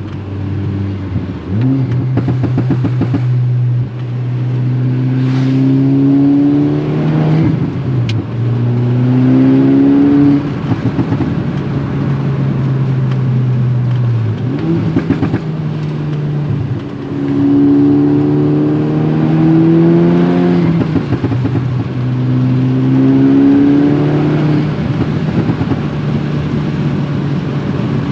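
Volkswagen MK6 Golf R's turbocharged 2.0-litre four-cylinder, with a custom turbo-back exhaust, pulling up through the gears. The revs rise and drop off at each shift several times, with a quick rev blip about halfway through.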